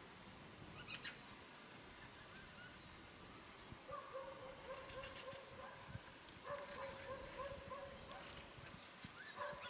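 Birds calling faintly: three runs of rapid, evenly repeated calls, each run lasting about two seconds, starting about four seconds in, with thin high chirps scattered between them.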